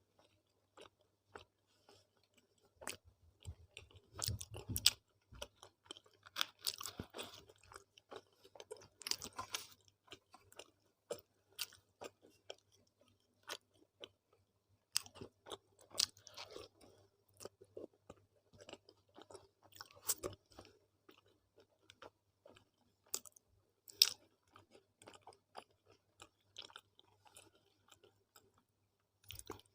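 Close-miked chewing of roti with dal and potato-fenugreek sabzi: irregular wet mouth clicks and soft crunches, coming in clusters with short pauses between bites.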